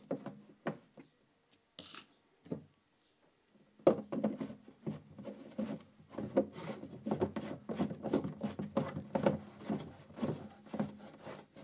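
Plastic ball valve being screwed by hand onto a plastic turbine jet holder. A few light handling knocks come first, then from about four seconds in a quick run of rubbing scrapes as the greased plastic threads turn.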